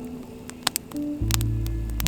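Background music of sustained low notes that shift to a new chord about a second in, with scattered sharp clicks.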